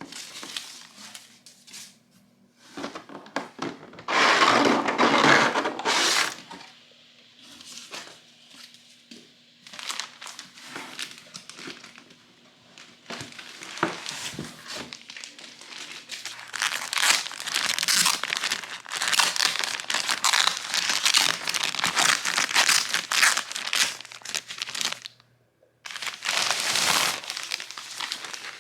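Packaging crinkling and rustling as it is handled and pulled apart, in irregular bursts with quieter pauses, loudest in long stretches near the middle and end.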